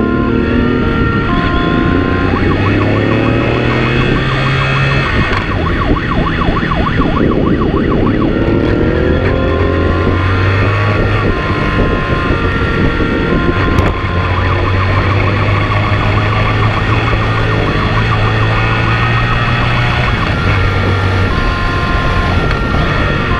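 Emergency-vehicle siren alternating between a high and a low note, switching for stretches to a fast pulsing warble, over an engine revving up through the gears and steady road noise.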